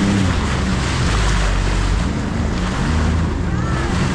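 Sea-Doo GTX jet ski running at speed over ocean chop: a steady engine drone under rushing water, spray and heavy wind noise on the microphone. The engine pitch dips and shifts about three and a half seconds in.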